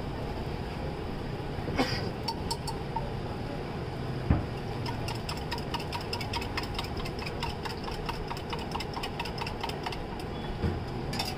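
Metal spatula tapping and scraping on a flat iron griddle as a flatbread cooks: a run of light, quick clicks for several seconds from about five seconds in, over a steady rumbling background noise. A single dull thump about four seconds in.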